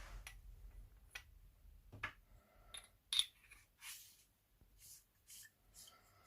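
Small clicks and scrapes of a metal flashlight being handled as a battery is fitted into its tube. There are several short knocks and scraping sounds, the loudest about three seconds in.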